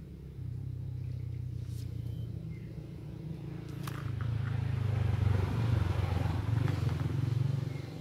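A motor vehicle engine running steadily, louder through the middle and dropping away near the end, with a few faint clicks over it.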